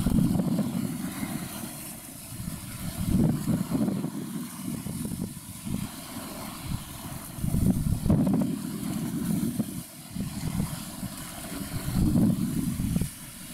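Wind buffeting the microphone: a low, gusty rumble that swells and fades every few seconds, strongest at the start, around three to four seconds in, around eight seconds in, and near the end.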